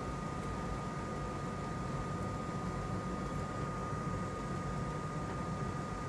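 Steady electric fan noise from the repair bench, a low rush and hiss with one constant high-pitched whine running through it.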